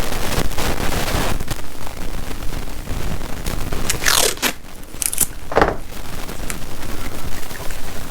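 Crunching and scraping handling noises from hands working on a motorcycle's wiring and connectors, with a few short scrapes in the middle.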